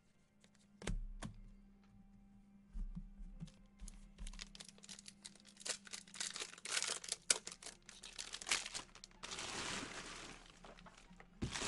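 Plastic wrapper of a Prizm football card pack crinkling and tearing open as it is handled, after a couple of light clicks from cards being handled. The crackling grows denser from about four seconds in, with a longer unbroken tear about nine seconds in.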